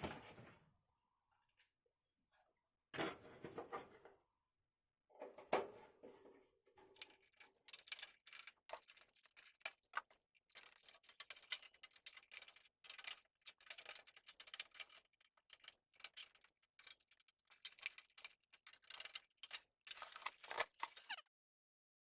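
Quiet, irregular small clicks, taps and rustles of hands working on a PC build: plastic and metal parts being handled and fitted, with a dense run of clicks through most of the second half.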